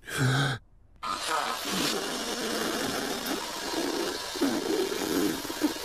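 Cartoon sound of a long curved horn being blown hard, starting about a second in: a long, raspy, wavering blast with no clear note. It is the wrong sound for the instrument, a horn that is not being played properly.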